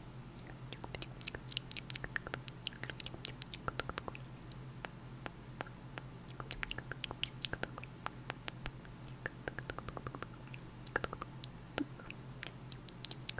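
Close-miked ASMR mouth sounds: wet tongue clicks and lip pops in an uneven patter, several a second, made right at a small lavalier microphone held just below the mouth.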